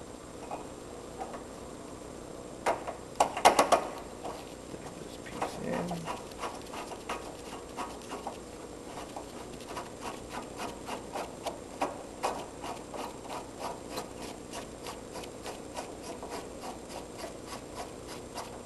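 Metal hydraulic quick-coupler fittings on a Cat skid steer being turned and threaded by a gloved hand. A cluster of sharp clicks and knocks comes about three seconds in, then a steady run of light metallic clicks, about three a second.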